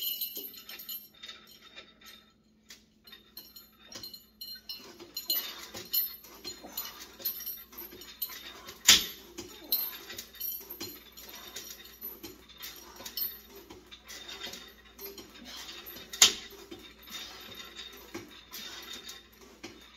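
Cable lat pulldown on a home multi-gym: the cable runs over its pulleys and the weight stack rises and falls, with metal clinks and two sharp clanks, about nine and sixteen seconds in.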